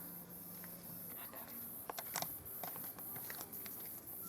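A dog chewing and biting lemongrass leaves: irregular crisp clicks and crunches, a few louder ones about two seconds in, over a steady high insect chirring.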